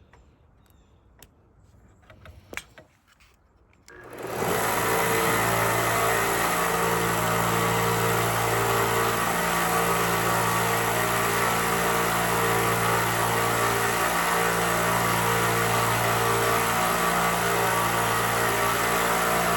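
Angle grinder cutting angle iron: after a few handling clicks, it starts about four seconds in and runs loud and steady, with a few brief dips.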